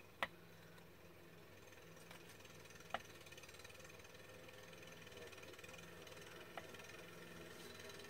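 Scissors cutting thin patterned paper, heard faintly: three short sharp snips a few seconds apart over a low steady hum.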